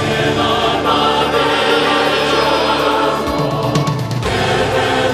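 Music with a choir singing sustained notes.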